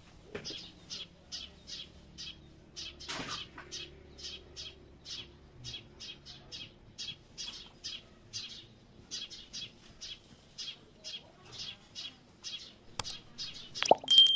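A small bird chirping over and over in short high chirps, about three a second. Near the end, a click followed by a loud bell-like chime: the subscribe-button sound effect.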